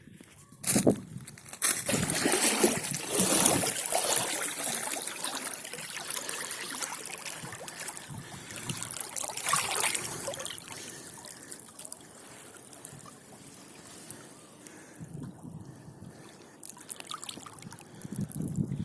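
Sea water sloshing and splashing close to the microphone, louder in the first half and settling to a quieter trickle later.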